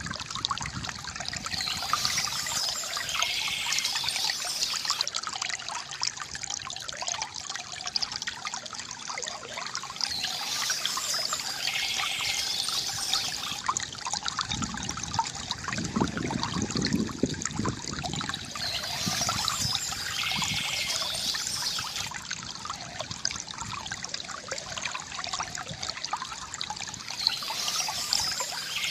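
Stream water trickling and gurgling steadily, with small birds singing in bursts of chirps that come back about every nine seconds.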